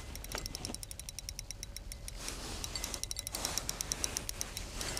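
Spinning reel clicking rapidly, several light clicks a second, as a hooked brown trout is played on light line through the ice.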